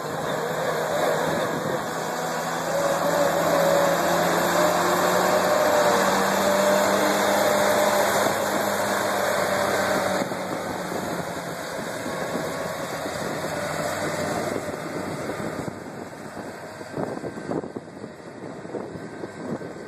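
John Deere 764 High Speed Dozer's 6.8-litre diesel engine running under load as the machine pushes black dirt, growing fainter as it moves off. Wind buffets the microphone near the end.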